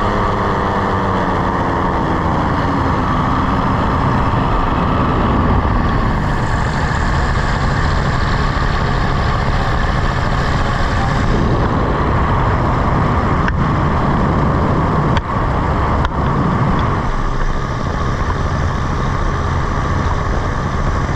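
Paramotor trike's engine and propeller running in flight, with wind noise on the microphone. The engine note falls in pitch over the first couple of seconds, then the sound runs on steadily, with two brief dips in loudness past the middle.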